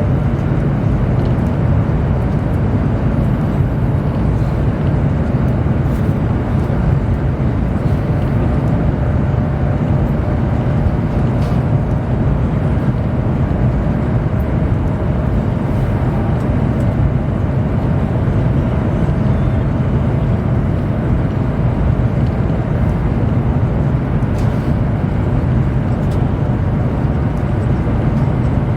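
Cabin noise of a Chinese high-speed bullet train running at speed: a steady low rumble and rushing noise from wheels, track and air.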